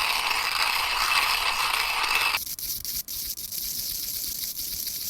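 Coffee beans crunching and crackling between the stainless steel conical burrs of a Timemore Chestnut C3 hand grinder as its crank is turned. About halfway through, the sound suddenly becomes quieter and thinner.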